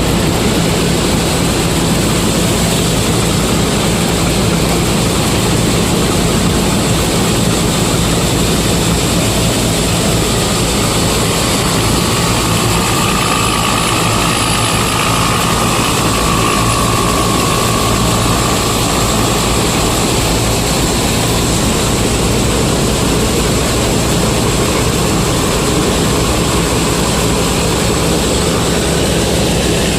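Combine harvester's diesel engine running steadily, a constant loud drone.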